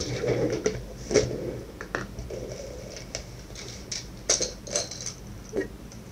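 Scattered sharp clicks and light knocks from small plastic parts being handled on a desk: a plastic jar of parts set down and a screwdriver bit holder twisted open, with brief rustling near the start.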